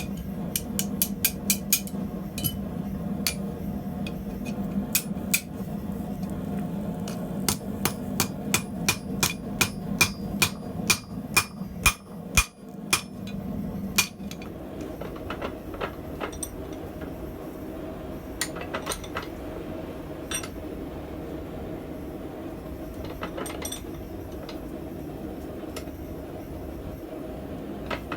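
Hammer striking hot steel tongs on an anvil: a long run of sharp, ringing blows through the first half, then only a few scattered taps, over a steady hum.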